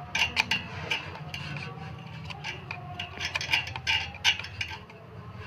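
Metal clicking and clinking of a hand tool on bolts as the two bolts of a ceiling fan's mounting clamp are tightened: a quick, uneven run of sharp clicks over a low steady hum.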